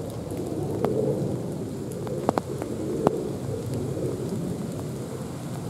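Steady low background noise with a few sharp clicks: one a little under a second in, two close together a little over two seconds in, and one about three seconds in.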